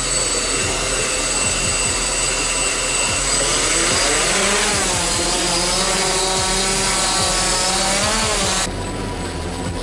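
Multirotor drone's electric motors and propellers whirring: a steady high whine at first, then from about three and a half seconds in the pitch climbs and wavers as the motors speed up for takeoff. The sound changes abruptly near the end.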